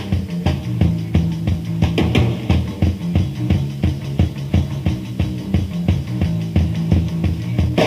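Underground punk rock song played on electric bass and drums alone, with a repeating bass line under a steady, fast drum beat, heard on a lo-fi cassette demo recording.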